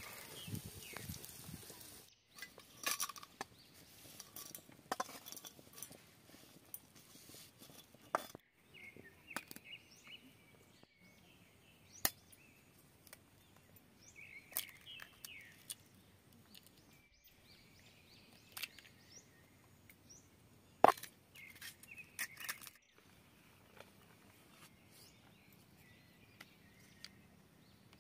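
Scattered sharp taps and clinks of eggs being cracked against a steel bowl and of kitchen handling, with small birds chirping in the background. One sharp crack, about three-quarters of the way through, is the loudest.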